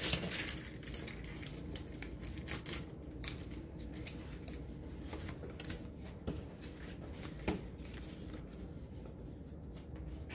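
A foil booster pack crinkling as it is handled and opened, with scattered small clicks and rustles and one sharper click about seven and a half seconds in.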